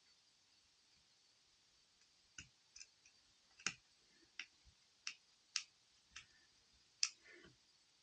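Sharp clicks and taps of small tools and tiny screws against a phone's frame during reassembly, about eight of them at uneven intervals starting about two seconds in, followed by a brief scrape near the end.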